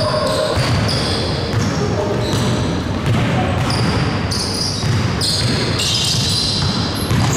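A basketball game in a gym: a ball bouncing on the court, short high sneaker squeaks, and players' voices.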